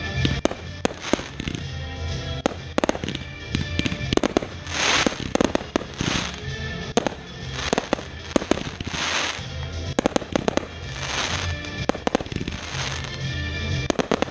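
Fireworks bursting: frequent sharp bangs at an irregular pace, with several crackling, hissing swells, over music with a steady bass line.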